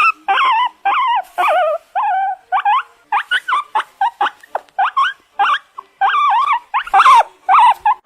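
An animal calling: a quick run of high, wavering whines and yelps, about two or three a second, many falling in pitch.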